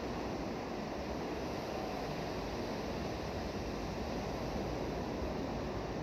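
Ocean surf breaking and washing ashore: a steady, even wash of noise with no single crash standing out.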